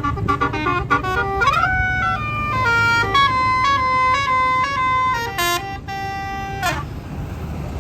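Tour bus's Basuri telolet horn playing a melody: a run of quick notes, a rising slide, then longer held notes, cutting off near the end. A low steady rumble runs underneath.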